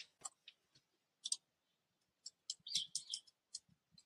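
Faint, irregular clicking of computer keyboard keys, in scattered single strokes with a quick run of keystrokes about three seconds in.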